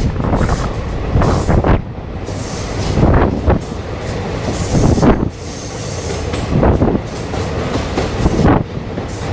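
A train running on its track: a loud, uneven rumble broken by repeated sharp knocks and clatter.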